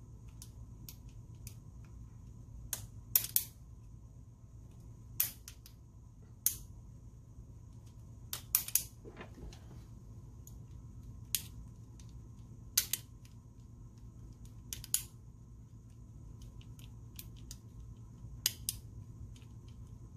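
Small sharp clicks from the trigger and trigger trolley of a VFC Avalon Version 2 airsoft gearbox being worked by hand. There are about fifteen, one to three seconds apart, some in quick pairs. The trigger moves freely on semi with no blocking.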